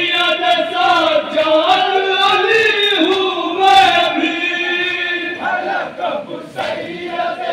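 Men of an anjuman chanting a noha together, the lead reciter's voice amplified through a PA, with hands slapping chests in matam.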